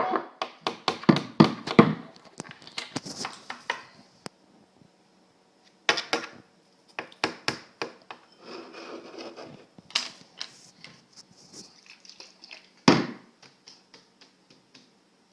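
A young child banging objects at the lunch table, sharp knocks and taps coming in irregular clusters with short pauses between, the loudest single knock near the end.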